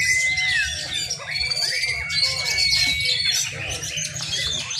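Several caged oriental magpie robins (murai) singing at once, pitted against each other in competition. Clear whistled phrases and sliding notes overlap with rapid short notes, over a steady low background hum.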